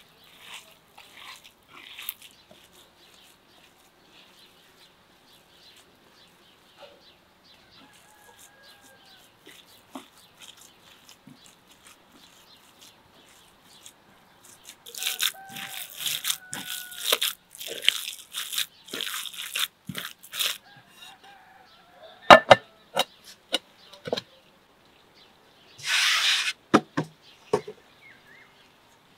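Hands squeezing and mixing raw minced beef with onion and herbs in a bowl, wet squishing in bursts, heaviest in the middle. Later come a few sharp knocks and a short rustling burst.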